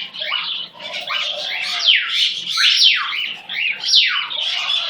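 Young pet bird calling repeatedly: a rapid series of squawky calls, each sliding steeply down in pitch, two or three a second.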